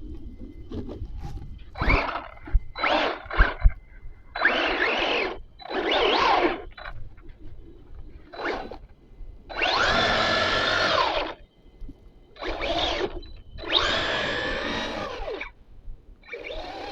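Arrma Granite RC truck's electric motor whining in about nine short throttle bursts, the longest about a second and a half, its pitch bending up and down as the wheels spin. The snow is too heavy for the truck.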